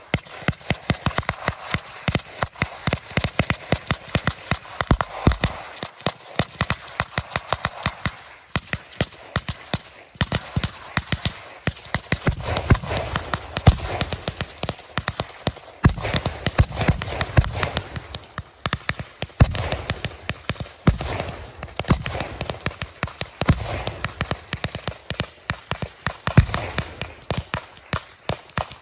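Ground fireworks crackling: a dense, irregular stream of sharp pops from crackling stars thrown up by a row of burning fountains. At times a low rumble runs under the pops.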